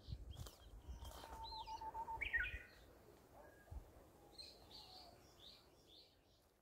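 Wild birds calling: a short trill about a second in, quick rising and falling chirps just after, then a run of high chirps around the middle. A low rumble sits under the first couple of seconds.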